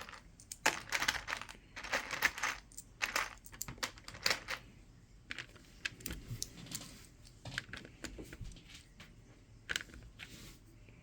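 Loose plastic Lego bricks rattling and clinking in a run of short bursts for the first few seconds as pieces are picked through, then scattered single clicks as bricks are pressed into place.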